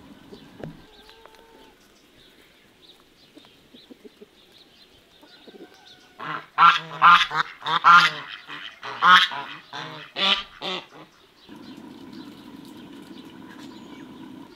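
Domestic geese honking, a rapid run of about a dozen loud calls lasting around four seconds. Afterwards a low steady rushing comes from the wood fire under a cast-iron pot.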